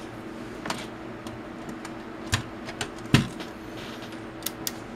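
Opened Hewlett-Packard bench multimeter being switched on and handled: a few scattered sharp clicks and knocks, the loudest about three seconds in, over a steady low hum.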